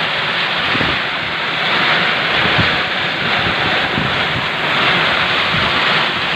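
Heavy downpour hissing steadily while storm wind gusts and buffets the microphone with irregular low rumbles.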